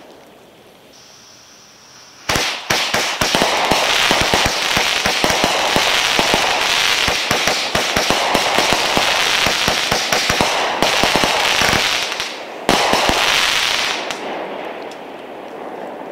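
Shelton's Enforcer 200g fireworks cake firing its shots at a fast machine-gun pace. A brief high hiss comes first, then a dense run of rapid pops and bangs for about ten seconds, a short break, and a final quick volley that trails off.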